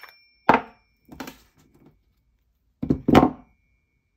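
Metal saber hilt parts knocked and set down on a desk: a sharp knock with a brief metallic ring about half a second in, a softer knock soon after, and a louder double knock about three seconds in, again ringing briefly.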